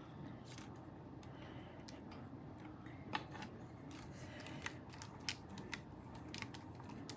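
Quiet handling of a thin plastic stencil pressed onto polymer clay and a roller rolled over it, giving scattered faint clicks and ticks, more of them in the second half.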